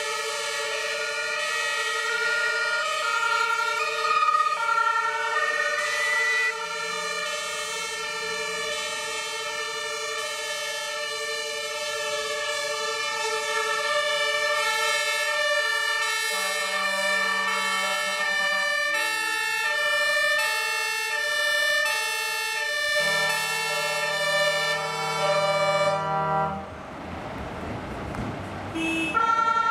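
Background music of held electronic chords over long bass notes, with a slow melody stepping up and down; a short stretch of noise breaks in near the end.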